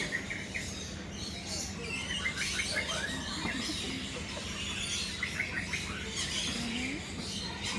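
Birds chirping: quick runs of short, high chirps about two seconds in and again about five seconds in, over a steady low hum.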